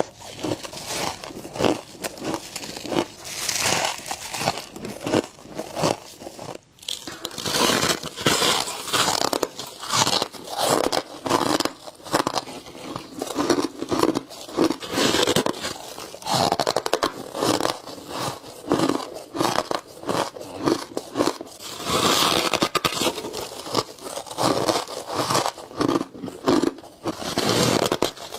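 Close-miked bites into powdery frost ice, one crisp crunch after another with crackling and squeaky chewing between bites, with a brief break about a quarter of the way in.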